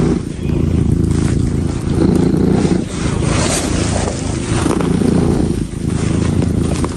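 Domestic cat purring loudly right at the microphone, a low rumble that swells and eases with each breath.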